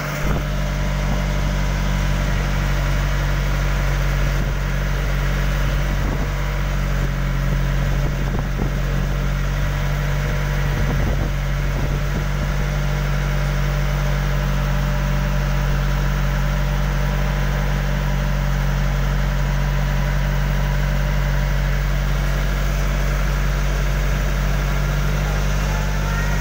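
Engine of a bamboo-outrigger passenger boat (bangka) running at a steady cruising speed, heard on board as a loud, even drone.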